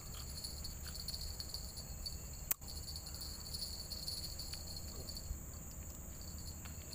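Steady high-pitched chorus of insects from the riverside vegetation, over a low rumble. A single sharp click comes about two and a half seconds in.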